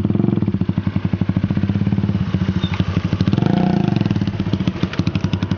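Motorcycle engines running as a trail bike and a scooter ride past, a fast, even putter of exhaust pulses that swells about three and a half seconds in.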